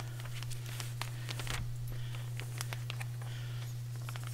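Sheets of paper being handled and shuffled: scattered soft clicks and rustles over a steady low electrical hum.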